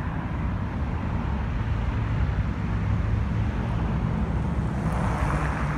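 Road traffic: cars driving past on a paved street, with wind rumbling on the microphone; one passing car swells up about five seconds in.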